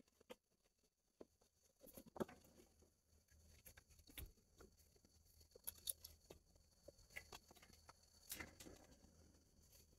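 Faint scattered taps, cracks and scrapes of dry sticks and a long dead branch being picked up and dragged over a concrete floor, with a few louder knocks among them.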